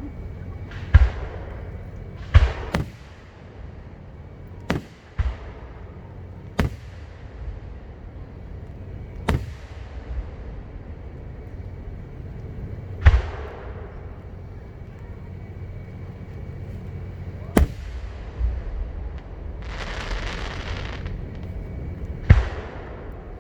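Aerial fireworks shells bursting: about ten sharp booms at irregular intervals, some in quick pairs, each trailing off in an echo. About twenty seconds in there is a short stretch of crackling hiss.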